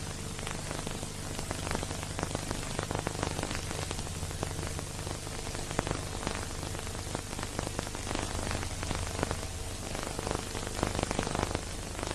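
Dense crackle and hiss with a low steady hum underneath, the surface noise of an old silent-film transfer; no music plays.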